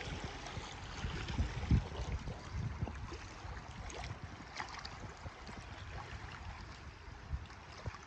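Wind buffeting the microphone in uneven gusts, over the steady wash of lake water lapping against a stony shore.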